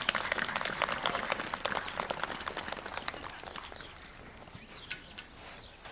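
Audience applauding, a dense patter of claps that fades away over the first three to four seconds.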